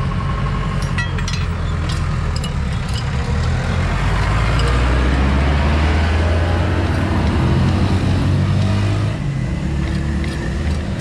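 Mitsubishi Fuso truck's diesel engine running, its speed rising about four seconds in and dropping back about nine seconds in. A few light metallic clicks in the first three seconds.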